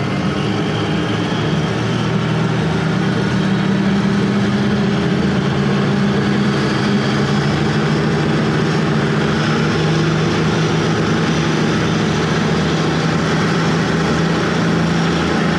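Diesel engines of an oilfield cementing pump truck running at high revs, driving its triplex pumps in fourth gear and its engaged centrifugal pumps. They are being brought up toward 1600 rpm to blow the water out of the pumps for winterization ("fanning"). The engines get louder over the first few seconds, then hold a steady, loud drone.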